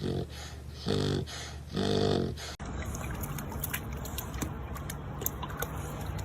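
A dog vocalizing in three short pitched calls, the last the longest and loudest. An abrupt cut follows to a steady low hiss with faint scattered clicks.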